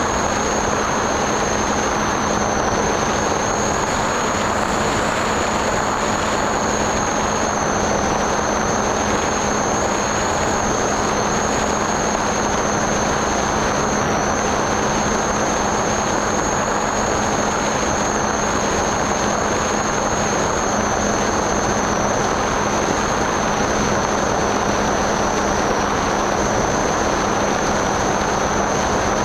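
Onboard sound of a Skyhunter FPV plane in flight: steady wind rush over the airframe with its electric motor and propeller running, a constant low hum under a high whine that wavers slightly.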